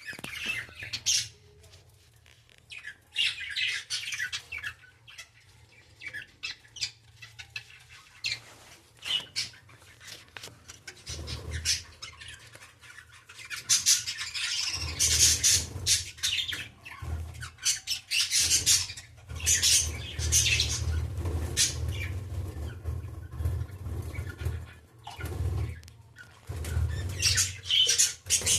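Pet budgerigars chirping and squawking in quick bouts of short, high calls. A steady low rumble runs underneath from about eleven seconds in.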